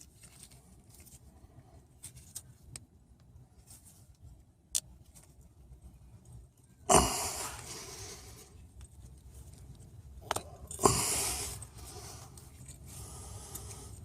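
Hand-work noises on a strut assembly: scattered light clicks and taps, then two louder, sudden scraping sounds about seven and eleven seconds in, each trailing off over about a second.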